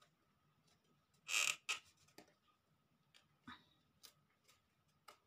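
Small wooden craft pieces being handled by hand: a short scraping rustle about a second in, then scattered light clicks and taps, over a faint steady hum.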